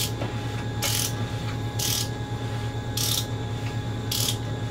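A ratchet turning a V8 engine's crankshaft over by hand to the next check point, clicking in five short bursts about once a second, over a steady low hum.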